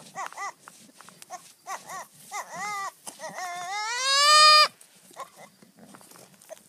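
Young goat bleating: a run of short, arching bleats, then one long bleat that rises in pitch and is the loudest, about three and a half seconds in.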